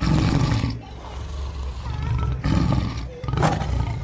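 Tiger roar sounding twice: a long rough roar over the first second or so, then a second one starting about two and a half seconds in.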